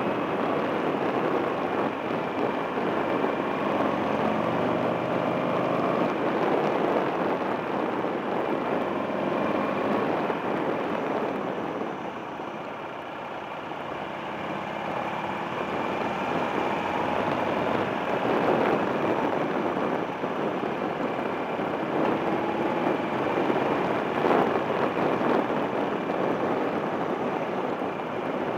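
Buell XB9SX's air-cooled V-twin running as the motorcycle rides through curves, its pitch rising and falling with the throttle, under a steady rushing noise. It eases off and goes quieter for a couple of seconds about halfway through, then builds again.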